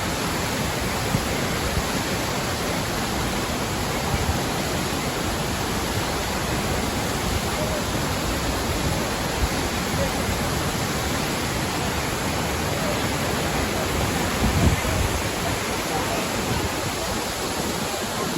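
Düden Waterfall's falling water making a steady, dense rushing noise. A brief low rumble rises over it about three-quarters of the way through.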